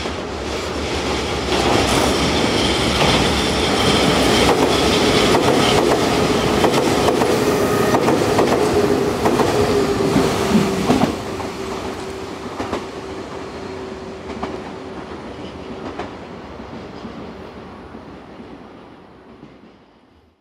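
Nankai 11000 series limited express train passing through a station at speed, its wheels clattering over rail joints. The sound swells to its loudest for several seconds, then a steady tone lingers as the train moves away and the sound dies down.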